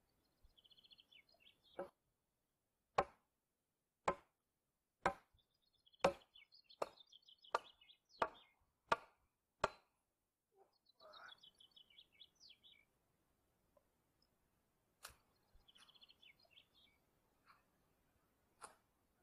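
Axe chopping into a wooden post, hewing its end to a point: a steady run of about nine sharp blows roughly one a second, then two more single blows near the end. Small birds chirp between the strokes.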